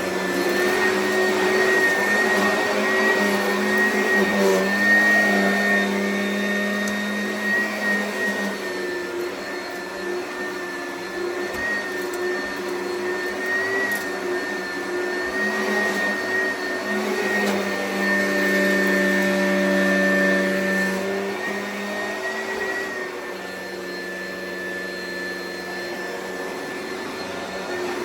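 Oreck vacuum cleaner running while vacuuming, a steady motor whine over a lower hum, its loudness swelling and easing every few seconds as it is pushed over the floor.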